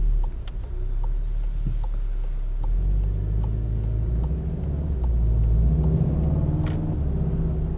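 Volkswagen Golf 7 R's engine running at low revs as the car drives along in fourth gear at about 40 km/h: a steady low rumble that grows a little fuller about three seconds in.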